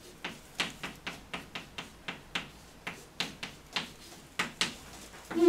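Chalk tapping and scraping on a blackboard as characters are written by hand: a quick, uneven run of short sharp clicks, about three or four a second.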